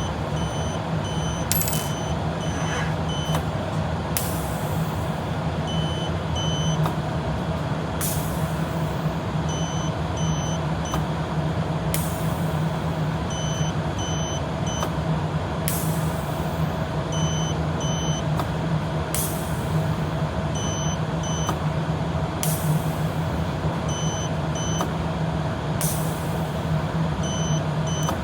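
A battery continuity tester beeping in runs of short, quick pulses as the reed switch closes, the runs coming every few seconds, over a steady machine hum. A sharp burst of air hiss about every three to four seconds.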